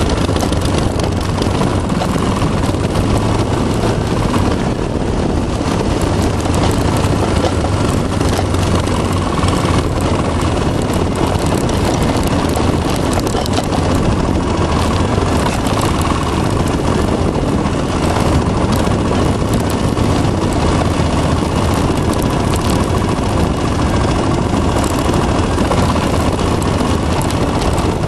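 Honda TRX 350 ATV's single-cylinder four-stroke engine running steadily while the quad is ridden through powder snow.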